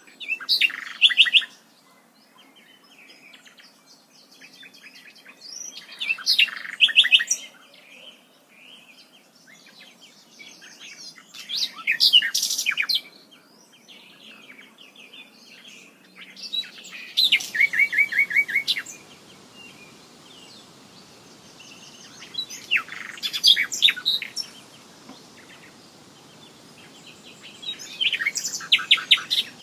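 Birdsong: one loud bird repeats a short song of rapid trilled notes about every five to six seconds, six times, with fainter birds calling between its songs over a soft steady background hiss.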